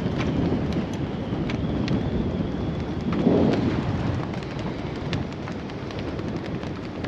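Strong wind buffeting the microphone in a low, rumbling rush, with a gust swelling about three seconds in and a few faint ticks scattered through it.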